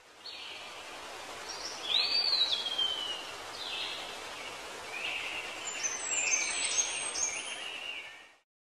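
Birds chirping and calling over a steady hiss of outdoor ambience. One call about two seconds in sweeps up and then slides down, and several short calls follow later. The sound fades in at the start and fades out near the end.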